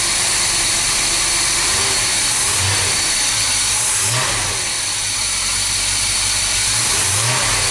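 Chevy 454 (7.4 L) big-block V8 running with freshly replaced valve stem seals, its throttle blipped by hand at the carburetor about three times, each a short rise in revs that falls back to idle. It runs smoothly when revved.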